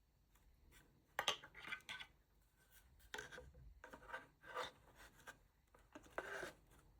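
Several short bursts of rubbing and scraping, as from objects being handled, the loudest about a second in.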